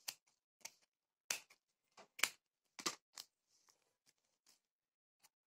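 Scissors snipping through folded blouse fabric while a curved neckline is cut: about ten short, separate snips, faint, stopping near the end.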